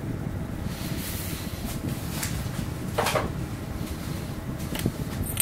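Light metal clicks and a brief scrape about three seconds in, as a threaded steel 5C collet is unscrewed and slid out of a lathe's headstock spindle nose, over a steady low hum.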